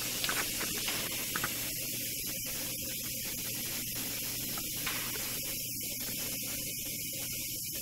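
Steady airy hiss throughout, with a couple of faint knocks about a second in.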